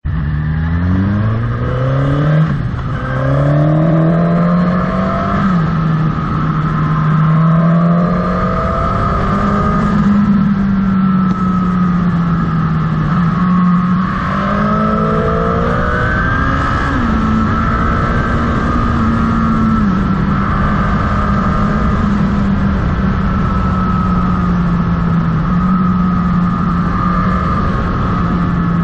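Motorcycle engine pulling away, its note rising through the first gears, then running steadily at road speed with small steps in pitch at gear changes and throttle changes.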